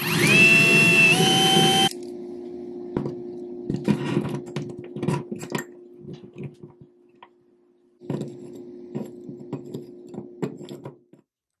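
Power drill running for about two seconds as it bores into a wall, its whine climbing in pitch and stepping up once. After it stops, a quieter steady hum with scattered clicks and taps as a small fitting is worked into the drilled hole by hand.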